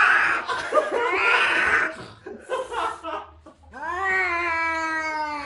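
Angry cat hissing in noisy bursts, then giving one long, drawn-out, slightly falling yowl starting nearly four seconds in.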